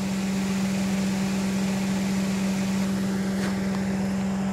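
Car idling nearby: a loud, steady engine hum with a constant hiss above it.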